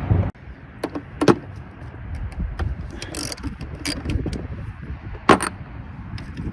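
Irregular sharp clicks and clacks, about half a dozen spread over several seconds, from parts or tools being handled during hands-on work, over a low steady rumble.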